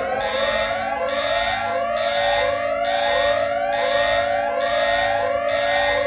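Emergency alert siren presented as Nepal's, sounding like three alarms at the same time: overlapping rising whoops repeat about once a second over steady held tones, with a high beep pulsing at the same pace.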